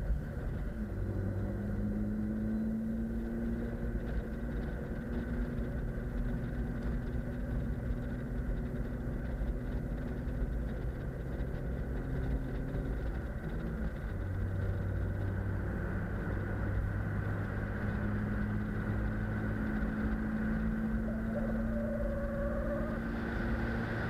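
BMW E36 328i's inline-six cruising at a steady, moderate engine speed, with tyre and wind noise, heard from outside the car beside the driver's window. The engine note holds nearly level, shifting slightly a couple of times.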